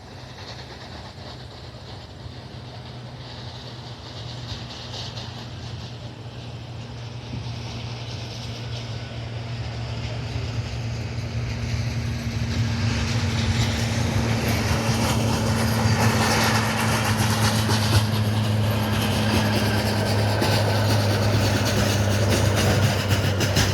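Boeing 737-800 jet airliner's turbofan engines on landing approach, the noise building steadily over about twelve seconds as it closes in, then holding loud with a steady low hum.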